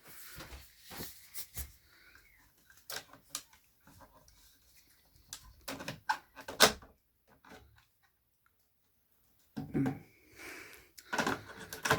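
Scattered plastic clicks and knocks as an Apollo Series 65 optical smoke detector head is pressed and twisted off its mounting base. The loudest is one sharp click a little past the middle.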